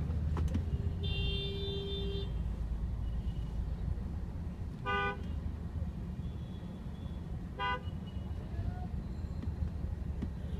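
Vehicle horns honking in dense traffic, heard from inside a car: one longer honk about a second in, then two short toots around five and eight seconds, over a steady low rumble of engines.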